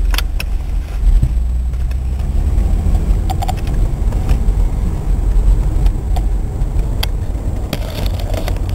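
Car driving, a steady low rumble of engine and road noise with scattered light clicks and rattles.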